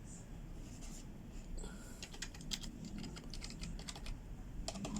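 Keys of an Asus TUF Gaming K1 membrane keyboard being pressed, giving soft, quiet taps. The taps start out scattered and come faster near the end.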